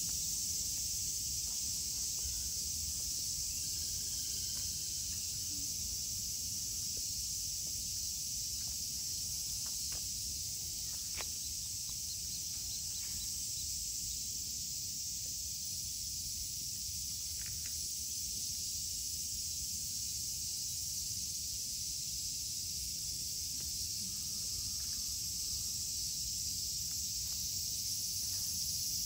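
Cicadas droning in a steady, dense, high-pitched chorus, with a few faint short ticks now and then.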